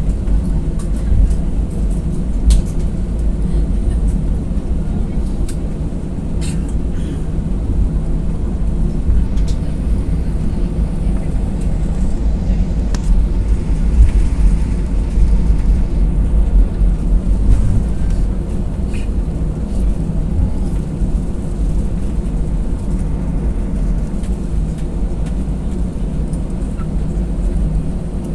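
Cabin noise inside an Airbus A320 on the ground before takeoff: the engines' steady low rumble and hum, with a few faint clicks and knocks.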